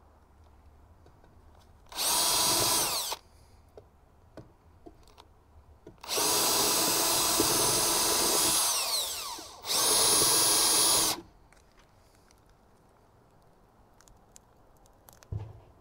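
Cordless drill-driver running in three bursts as screws are driven into a new plywood deck panel: a short run of about a second, a longer run of about three seconds that winds down in pitch at its end, then another run of about a second and a half.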